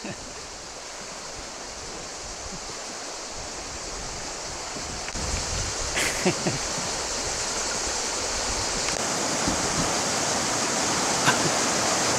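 River rapids rushing steadily, slowly growing louder, with a couple of faint short sounds over the water noise.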